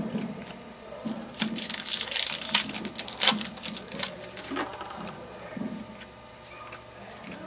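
Wrapper of a baseball card pack crinkling as it is torn open and crumpled, a burst of crackling that lasts about three seconds, followed by quieter handling.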